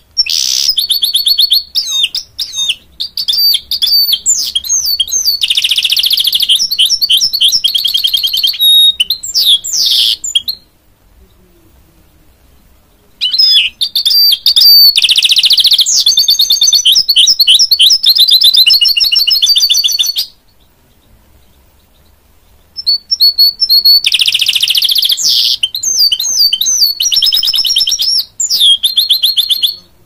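Goldfinch mule (goldfinch hybrid) singing in three long phrases of fast twittering trills, quick rising and falling whistles and buzzy notes, with pauses of two to three seconds between them.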